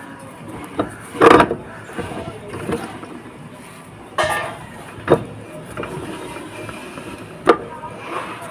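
Knocks and scrapes of metal parts as a Yamaha Fascino scooter's rear wheel is worked onto its axle: a few sharp clunks, with two short, louder scraping clatters about a second in and about four seconds in.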